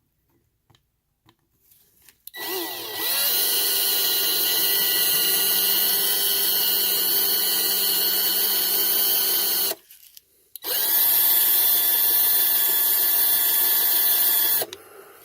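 Small high-speed power drill drilling out a rivet in a diecast toy car: it spins up with a rising whine and runs steadily for about seven seconds, stops briefly, then runs again for about four seconds.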